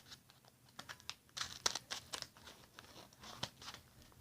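Scissors snipping through a small paper wrapping, with irregular crisp snips and crinkling of the paper as it is cut open.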